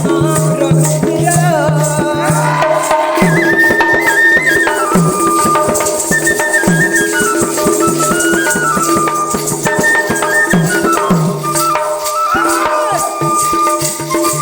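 Instrumental danda folk music: a melody stepping up and down over held drone notes, driven by a fast, even rattling percussion beat.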